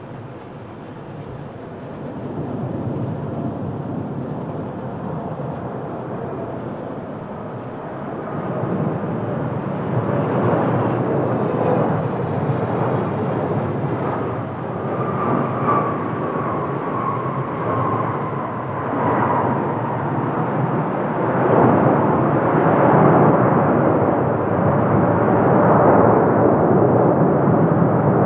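Boeing 777-300ER jet on landing approach, its two GE90 turbofan engines growing steadily louder as it comes closer. An engine whine slides slowly down in pitch as it passes.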